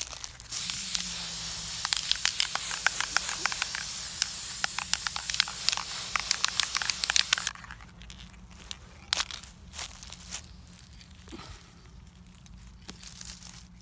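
Aerosol spray paint can spraying in one long continuous hiss with a fine spitting crackle for about seven seconds, then cutting off. A few faint clicks and knocks of handling follow.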